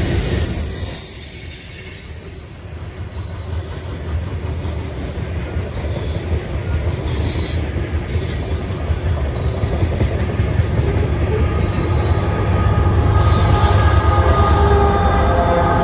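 Loaded CSX freight cars rolling past at speed, a heavy steady rumble of wheels on rail with brief high squeals now and then. Near the end, the mid-train distributed-power diesel locomotives arrive and their engine drone builds to the loudest part.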